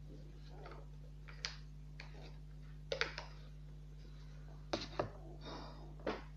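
Paper being folded and creased by hand into an origami boat: soft rustling with a few sharp crackles, the loudest about three and five seconds in, over a steady low hum.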